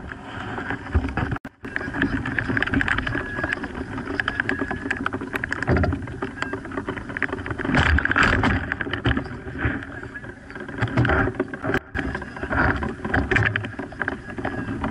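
Rushing air buffeting the microphone of a harness-mounted camera on a hang glider in flight, with the harness fabric flapping and rattling. The rush rises and falls in gusts and cuts out briefly twice.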